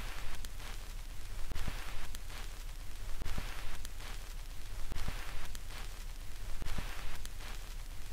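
Hissing static with faint crackles, swelling and fading in even waves about every second and a half, over a steady low hum.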